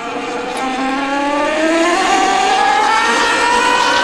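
Talaria MX5 electric dirt bike, running on a Torp TC1000 controller, whining from its motor and gearbox as it accelerates hard. The whine climbs steadily in pitch and grows louder over a steady rushing noise.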